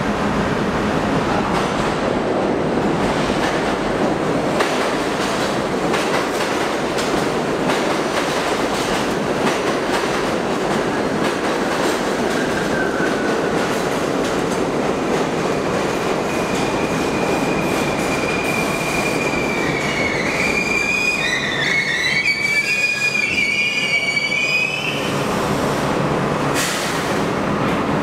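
New York City subway train of stainless steel cars running into and along an underground station platform, with a steady loud rush and rumble of steel wheels on rail. From a little past halfway, a high, wavering metallic squeal of wheels on rail rises over it for several seconds.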